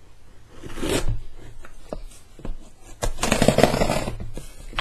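Packing tape on a cardboard box being slit and ripped open, with the box handled and scraped. A short scrape comes about a second in, and a longer, louder rip from about three seconds in.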